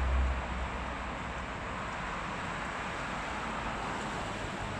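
Steady road traffic noise from cars driving along a multi-lane road below, mostly tyre hiss, with a low rumble in the first half-second.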